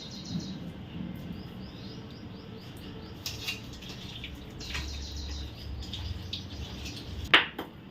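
Birds chirping in quick repeated series in the background, with a low hum partway through and a single sharp knock near the end.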